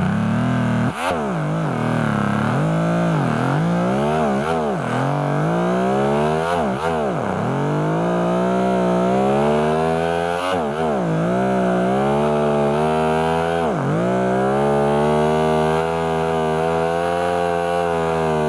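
Motorcycle engine revving, its pitch repeatedly swooping sharply down and climbing back up about half a dozen times, then holding a fairly steady high pitch over the last few seconds.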